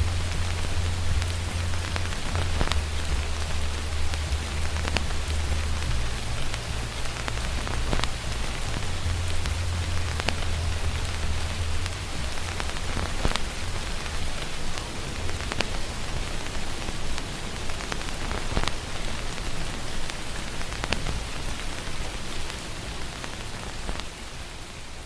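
Steady rain with vinyl-record crackle, sharp clicks every two to three seconds. Under it, muffled music from another room is heard only as its bass, which stops about halfway through. Everything fades out near the end.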